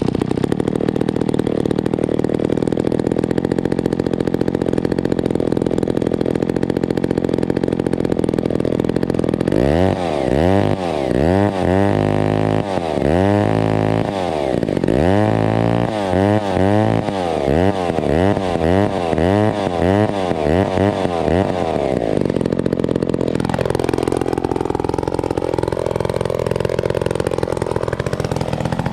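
McCulloch 890 103 cc two-stroke gear-drive chainsaw running at high speed, then revving up and down repeatedly for about twelve seconds before dropping back to idle near the end.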